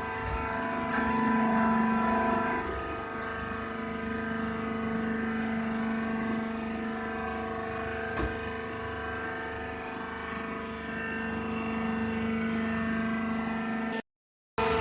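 Horizontal baler for peanut shells and other soft material running: a steady machine hum with a strong low drone and higher tones above it, cutting off abruptly just before the end.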